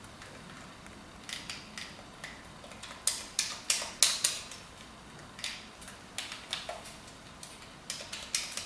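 Irregular plastic clicks and taps as a GameCube-style wired USB controller is handled, in clusters of a few quick clicks, the loudest group about three to four seconds in.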